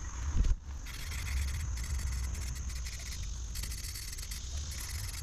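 Aerosol spray paint can hissing in uneven spurts as a coat is sprayed on, over a steady trill of crickets. A short low thump comes about half a second in.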